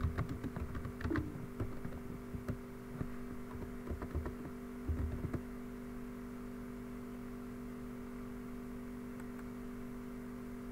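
Scattered clicks of a computer keyboard for about the first five seconds, over a steady electrical hum that then carries on alone.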